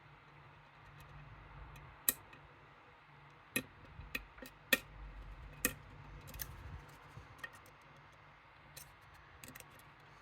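Small, sharp, irregular metallic clicks from lock picks working in a Medeco M3 pin-tumbler lock. The loudest clicks fall in the first half, with fainter ones near the end.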